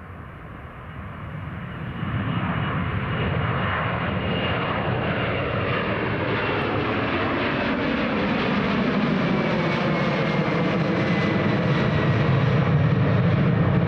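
Boeing 767-300ER's twin turbofan engines at climb power as it passes low overhead on departure: a dense roar that swells over the first two seconds and then holds steady, with a thin high whine slowly dropping in pitch.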